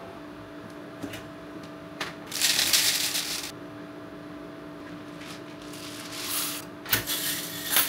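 Green coffee beans rattling as they are poured into a ROEST sample roaster, in two spells, the first the louder, over a steady low hum. Two sharp clicks come near the end.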